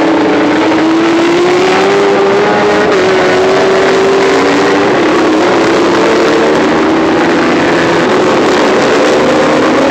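World Superbike race motorcycles' engines running at high revs, a loud, steady engine note whose pitch climbs slowly, with a small drop about three seconds in.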